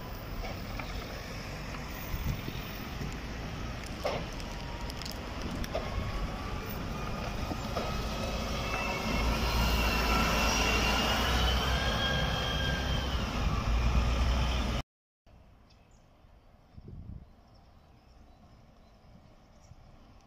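Articulated city bus pulling away and passing close by, its engine rumble and a rising transmission whine growing louder, until the sound cuts off abruptly about fifteen seconds in. After that only faint street noise remains.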